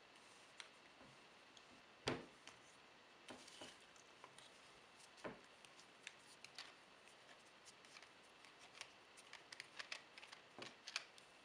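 Handling clicks and knocks from a clip clamp camera mount with a ball head while a Sony action camera is turned and unscrewed from it: two sharper knocks about 2 and 5 seconds in, then a run of small quick plastic-and-metal ticks near the end.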